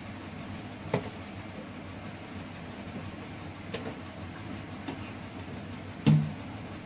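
Kitchen utensils knocking lightly a few times, with one louder thud near the end, over a steady low hum.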